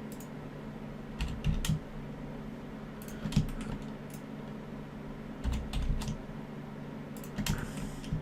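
Computer keyboard keys being pressed in short clusters of a few clicks at a time, with pauses between. A steady low hum runs underneath.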